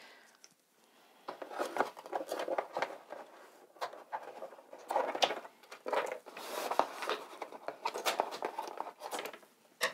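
Scissors cutting through a cardboard box, an irregular run of short cutting and scraping sounds starting about a second in, with the cardboard rustling as it is handled.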